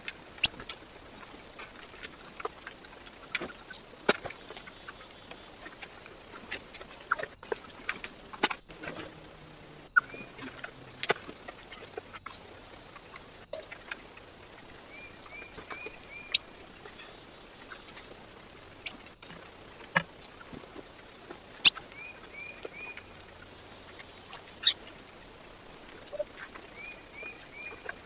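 Birds at a feeder: irregular sharp taps and clicks of pecking and hopping on the feeder, with short high chirps in quick runs of three or four a few times.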